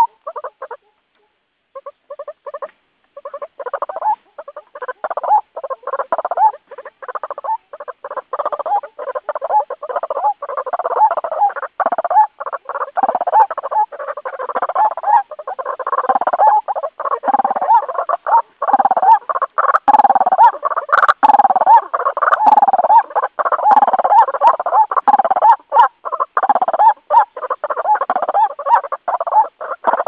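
White-breasted waterhen calling in rapid repeated notes, the lure call used to draw waterhens in. A few calls come first, with a short pause about a second in; then the calls run together without a break and grow louder from about the middle.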